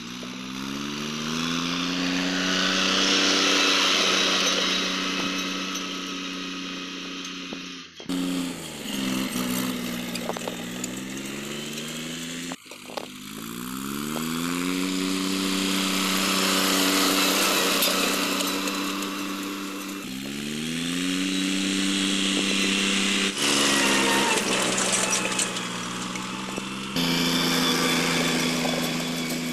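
Mahindra 275 DI tractor's three-cylinder diesel engine working under load as it pulls a disc harrow, revving up and holding steady, with its pitch falling and rising again several times and the sound jumping abruptly at the cuts.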